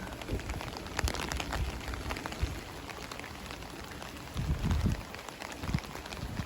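Steady rain falling, with scattered sharp drop ticks. A few low thumps come about four and a half seconds in.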